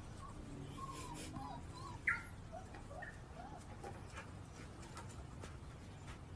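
Faint, high-pitched squeaks and chirps from a small animal: a string of short calls, with one sharper, louder call about two seconds in.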